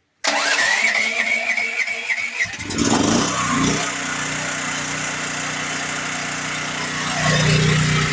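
DuroMax XP13000HX portable generator running on propane, started on its battery electric starter: the starter motor whines and cranks for about two seconds, then the engine catches and settles into steady running. Its running note swells briefly near the end.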